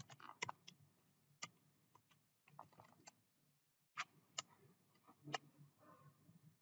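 Faint computer keyboard keystrokes and mouse clicks: scattered, irregular sharp clicks.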